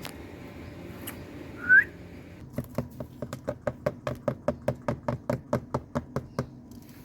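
A short rising whistle from an Indian ringneck parrot, then a steady run of sharp clicks, about six a second, lasting some four seconds.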